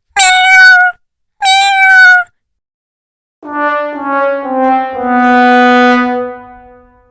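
A cat meows twice, two short calls each falling slightly in pitch. Then a brass 'wah-wah-wah-waah' sad-trombone sound effect: four notes stepping down, the last held long before fading.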